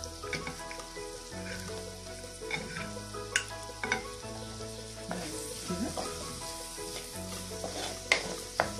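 Chopped onions sizzling in oil in a frying pan, with a few sharp clicks of plastic tongs against a glass dish as sausages are picked out.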